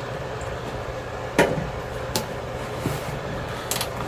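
A few sharp metallic clicks and clinks of hand tools and parts being worked inside a microwave's metal housing, the loudest about a second and a half in. A steady low hum runs underneath.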